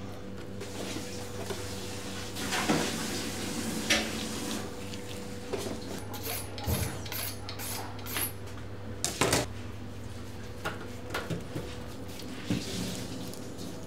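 Metal clinks, knocks and light scrapes as a long steel skewer and knife are handled at a lamb kebab stack on its steel stand, over a steady low hum. The sharpest knocks come about three, four and nine seconds in.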